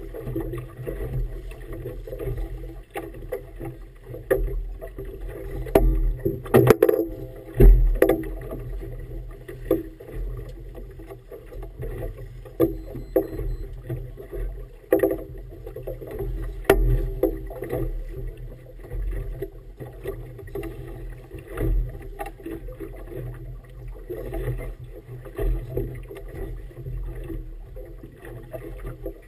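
Small motorboat under way on choppy water: steady engine rumble and water splashing against the hull, with irregular sharp knocks that are loudest about seven seconds in.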